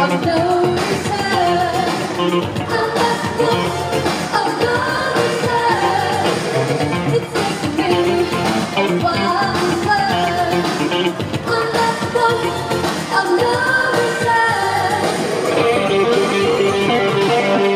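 Live synth-pop band playing, with a woman singing lead into a microphone over electric guitar.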